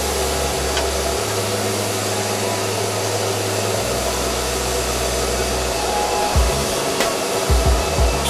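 Pillar drill press running steadily, its twist bit cutting into thick steel plate, with background music over it.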